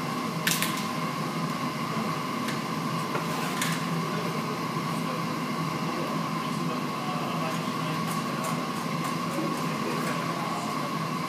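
Steady mechanical hum with a constant high whine over a low drone, with a few sharp clicks, the loudest about half a second in.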